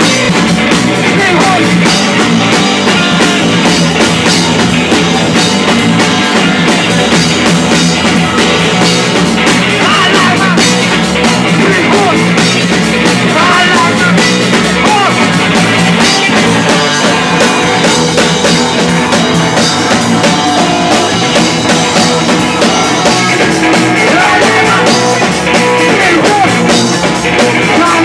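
Live rock band playing loudly without a break: drum kit with cymbals and electric guitar.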